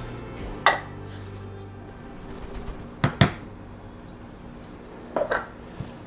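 Metal espresso portafilter and dosing funnel clinking and knocking against a wooden board and counter: three short sharp knocks about two seconds apart, the last two each a quick double.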